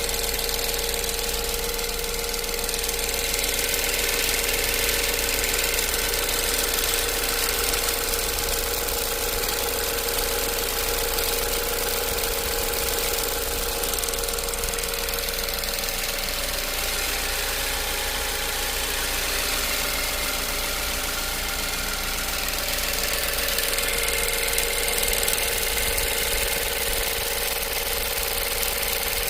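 2015 Ford Focus engine running steadily with a rapid, continuous ticking and clicking.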